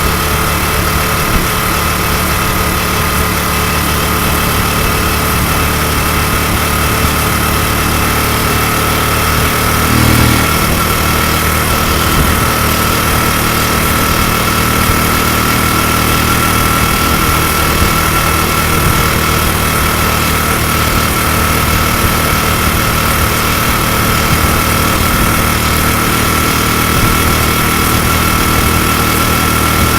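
Honda Super Cub's single-cylinder four-stroke engine, bored up to 105 cc, idling steadily, with a brief rise in engine speed about ten seconds in. It is being test-run with a manual cam chain tensioner fitted in place of the automatic one to cure a cam-chain ticking.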